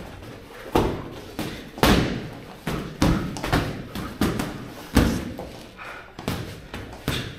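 Sparring boxers in a ring, about eight irregularly spaced thuds of gloved punches landing and footwork on the ring canvas, each with a short boom.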